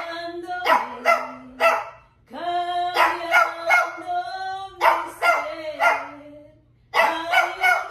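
Small dog yapping in short bursts of two or three, in time with a woman singing long held notes, as though the dog is singing along.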